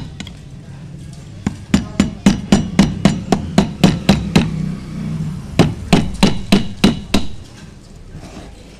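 Hammer blows on a chisel chipping at the lead terminal post of a motorcycle lead-acid battery, cleaning off the broken terminal. Quick sharp strikes, about four a second, in two runs with a short pause near the middle.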